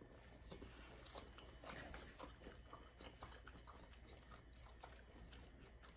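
Faint chewing of soft macaroni and cheese: scattered quiet mouth clicks and smacks over near silence.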